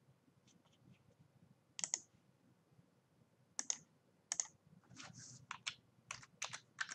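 Computer keyboard and mouse clicks: three separate clicks, then a quick run of keystrokes from about five seconds in as a username is typed.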